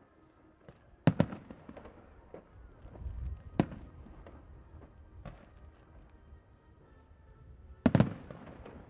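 Fireworks shells bursting in a salute: sharp bangs spaced a couple of seconds apart, the last one doubled near the end, with smaller pops and crackle between them.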